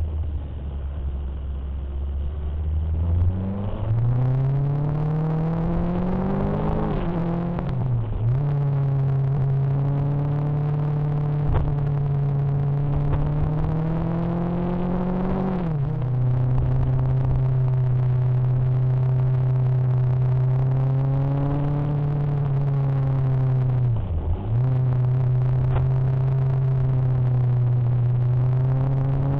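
Motorcycle engine heard from the moving bike: its pitch climbs twice as it accelerates, drops sharply each time, then holds steady with one brief dip near the end.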